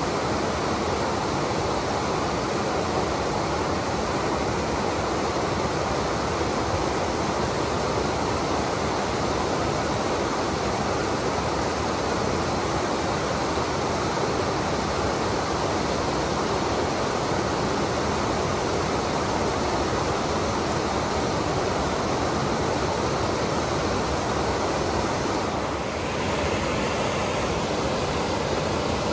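Creek water pouring over a rocky stone spillway below a culvert bridge in a heavy snowmelt-season flow: a steady, full rushing of falling and churning water.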